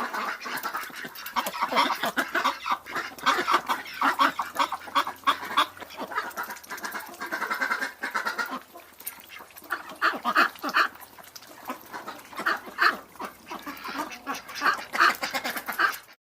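A flock of domestic ducks quacking, many calls overlapping in a continuous chatter.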